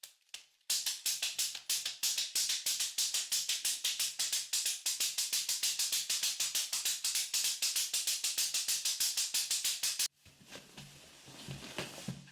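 Rapid, even tapping at about eight beats a second, bright and hissy, that starts sharply under a second in and cuts off sharply near the end.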